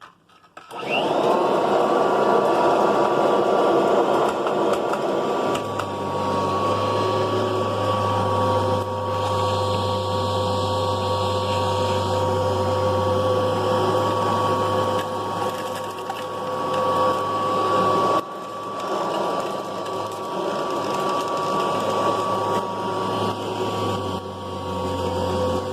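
Kirby Heritage II upright vacuum cleaner switched on: its motor spins up with a quick rising whine about a second in, then runs steadily with a high whine. About six seconds in a lower steady hum joins as it vacuums up debris.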